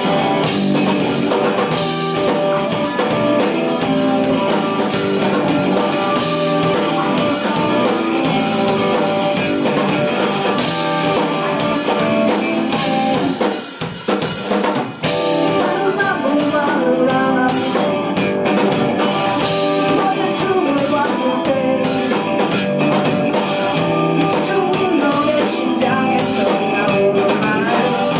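Live rock band playing: distorted electric guitars, electric bass and drum kit, the band briefly dropping back a little before halfway through.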